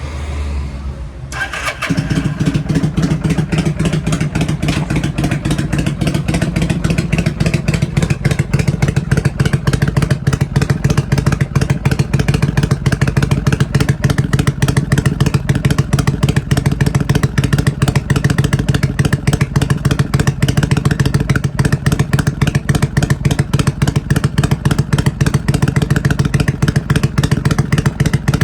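Kawasaki Vulcan 400 Drifter's V-twin engine being started: a brief crank, the engine catching about a second and a half in, then idling steadily with fast, even exhaust pulses, unrevved.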